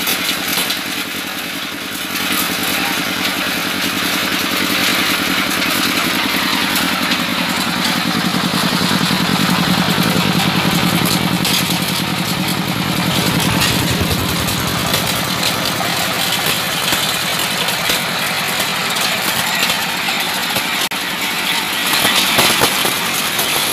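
Diesel engine driving an organic-fertilizer grinding machine, running steadily while compost is fed through the grinder.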